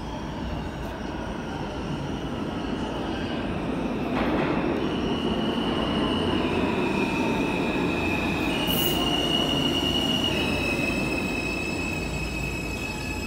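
An R160 subway train pulling into an underground station and slowing to a stop, its rumble growing louder over the first few seconds. From about four seconds in a high squeal holds and shifts in pitch.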